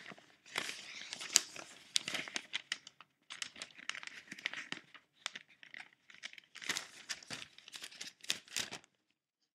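Dry, scratchy crinkling noises in irregular clusters with short gaps, stopping about nine seconds in.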